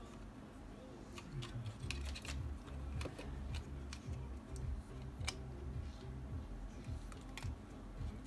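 Small sharp clicks and taps of plastic parts being handled, scattered through, as a dashcam's housing, board and ribbon cable are fitted together by hand. A low steady background noise runs underneath.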